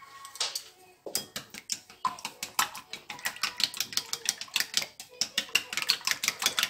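Wooden chopsticks beating raw eggs in a ceramic bowl, clicking rapidly against the bowl's side, several strokes a second, starting about a second in.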